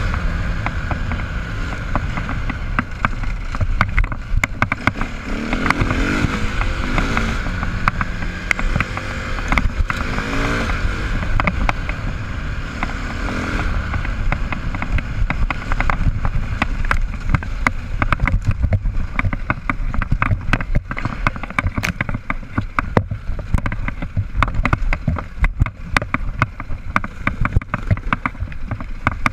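Dirt bike engine running and revving up and down as the bike is ridden over a rough trail, with a dense clatter of knocks and rattles in the second half.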